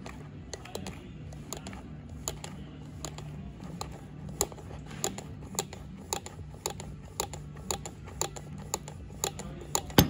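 Sharp metallic clicks from hand work on a brake caliper's piston, first irregular and then about two a second, the loudest near the end, over a steady low hum.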